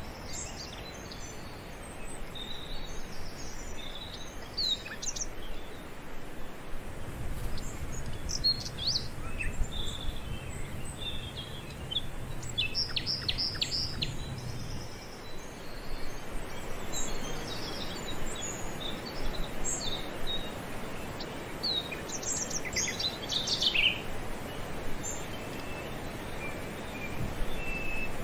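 Birds chirping and calling, short high chirps scattered throughout over a steady outdoor hiss, with a low rumble through the middle.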